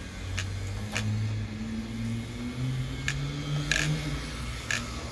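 Electric motor and drivetrain of an MST RMX 2.0 rear-wheel-drive RC drift car whining, the pitch slowly rising and falling with the throttle, with several short sharp clicks in between.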